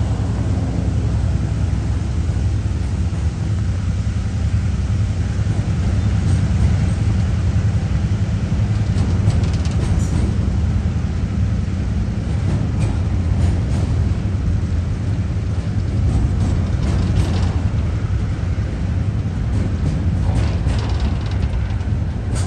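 Container wagons of a diesel-hauled freight train rolling past with a steady low rumble. Scattered clicks and knocks come from the wheels in the second half.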